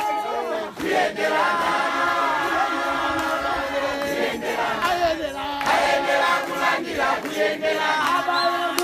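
A large crowd singing together, many voices holding long notes in several parts at once.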